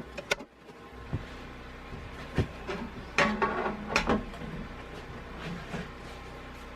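A few separate knocks and clunks, about a second apart, with some sliding sounds: the wooden log sled and its guide being handled and set on the bandsaw table before a cut. A faint steady hum sits underneath.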